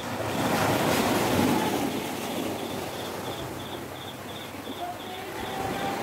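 Small sea waves breaking and washing up a sandy beach: a swell of surf builds about half a second in, then eases into a lower wash over the sand. A faint high chirp repeats about twice a second in the background.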